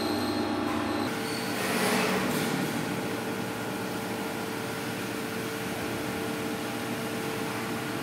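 CNC lathe running, turning a metal handle knob under coolant spray. About a second in the sound changes abruptly to a steady machinery hum with one constant tone.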